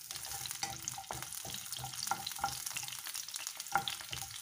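Small shallots frying in hot coconut oil in a nonstick pan: a steady sizzle with frequent light clicks and scrapes from a wooden spatula stirring them as they brown.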